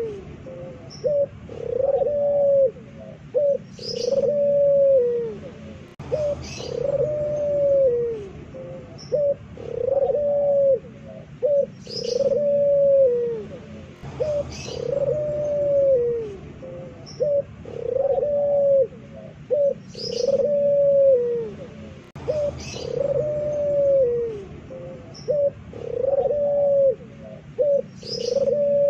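Puter pelung dove cooing loudly: a run of deep, arching coos repeated over and over, with a short break about every eight seconds. A brief high chirp sounds once in each cycle.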